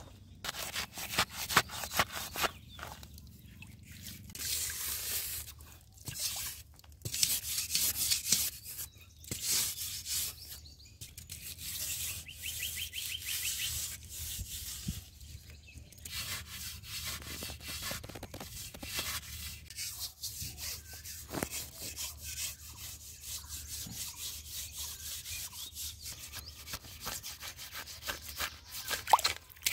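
Flat metal trowel blade scraping and smoothing wet mud in repeated rough strokes.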